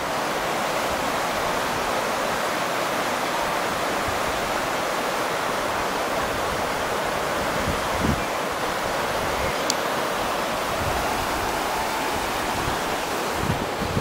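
Shallow, rocky river rushing over rapids: a steady, even sound of white water.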